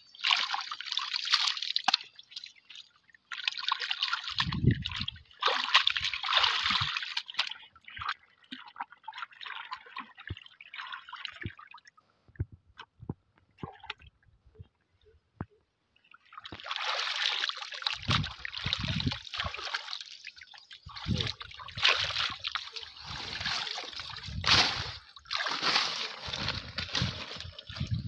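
Shallow water splashing and sloshing in irregular bursts as hands grope under a rock ledge to catch fish by hand, with a few dull low thumps. It stops for about four seconds midway.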